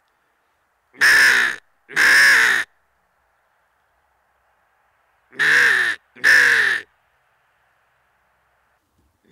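A man imitating crow caws with his voice, hands cupped at his mouth: four harsh caws in two pairs, the second pair about three seconds after the first.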